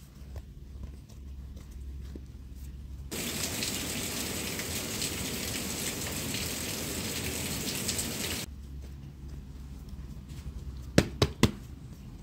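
Steady water noise that starts and stops abruptly, then three sharp knocks in quick succession near the end.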